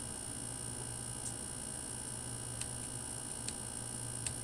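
Four short, sharp clicks of a computer mouse spread over a few seconds, over a steady low hum.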